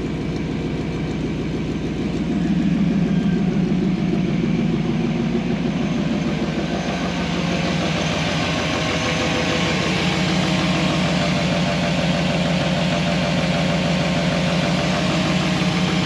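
A 5.7-liter V8 running at idle through a catless 3-inch straight-pipe exhaust with a Magnaflow muffler, a steady, even engine note. It gets a little louder about two seconds in.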